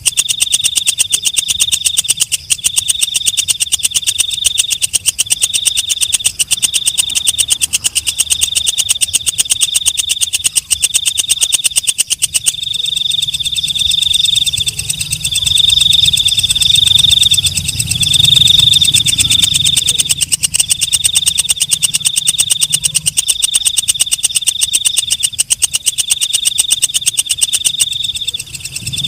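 Green leaf-mimicking katydid (walang kecek) stridulating: a loud, high-pitched rapid pulsing trill in phrases of about a second each, separated by brief gaps and repeated steadily.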